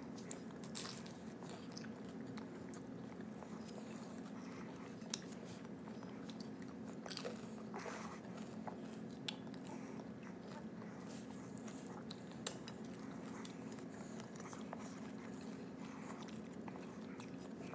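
Faint chewing and mouth noises from someone eating a bean-sprout spring roll, with scattered small clicks, over a steady low hum.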